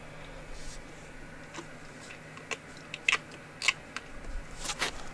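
Scattered small clicks and scrapes as a stuck oil filter screen is worked out of the drain-plug hole of an ATV engine, with the sharpest clicks coming about three to five seconds in.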